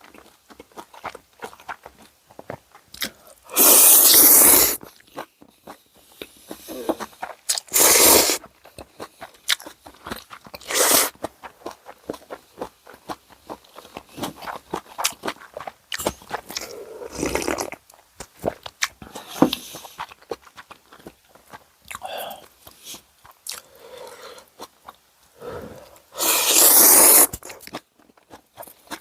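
Close-up eating sounds of tonkotsu ramen and karaage: steady chewing and crunching with many small clicks, broken by about five loud bursts of about a second each.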